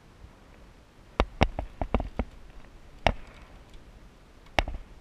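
Irregular sharp knocks and taps of gear being handled in a small aluminum boat: a quick cluster of six or seven about a second in, then single knocks near three seconds and again near the end.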